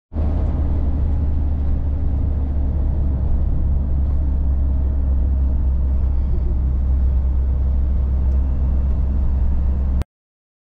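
Camper van driving at a steady speed, heard from inside the cab: an even low engine and road rumble that cuts off suddenly near the end.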